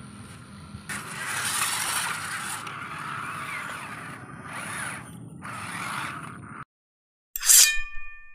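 Small electric radio-controlled crawler truck driving, its motor and gears whining with scraping and grinding from the tyres and chassis on the terrain; it cuts off suddenly about six and a half seconds in. Near the end a short bright chime with ringing tones.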